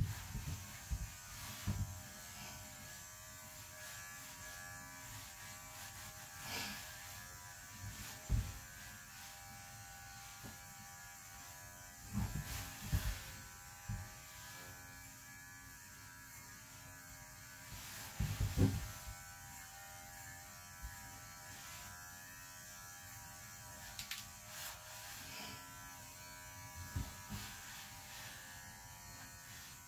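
Electric dog grooming clippers running steadily with an even buzz while clipping an Airedale's coat, with a few low thumps from handling.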